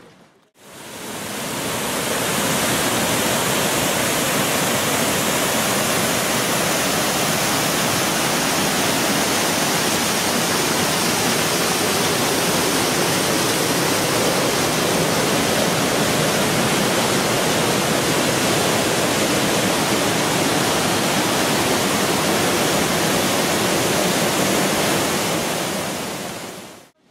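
Waterfall rushing, a loud steady wash of falling water. It fades in over the first couple of seconds and fades out near the end.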